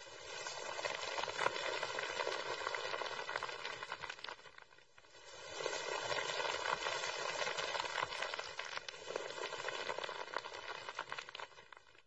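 Footsteps of a group of people walking across a hard stone floor: a dense patter of shoes and heels that eases off about four to five seconds in, then picks up again.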